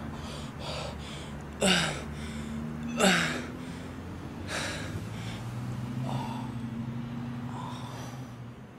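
A person breathing heavily in ragged gasps, with two louder gasps about two and three seconds in that drop in pitch, over a steady low hum.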